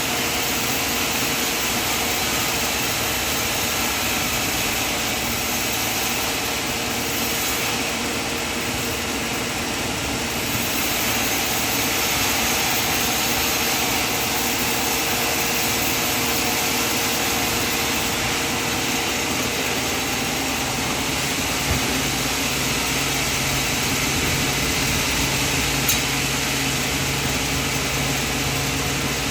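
Band sawmill running steadily, its blade and motor making a constant sawing noise through the cut; a lower hum comes in about twenty seconds in.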